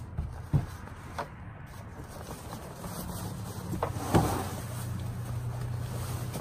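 A nylon laundry bag and the clothes inside it being handled: rustling, with a sharp knock about half a second in and a louder thump about four seconds in, over a steady low hum.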